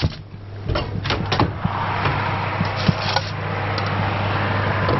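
A few knocks and clunks as the oven door is opened and a glass baking dish is handled, then a steady rushing noise from the open, running oven that goes on to the end, over a low steady hum.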